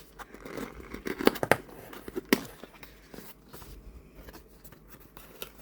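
Packaging rustling and crinkling as an item is unwrapped by hand, with a few sharp crackles between one and two and a half seconds in, then quieter handling.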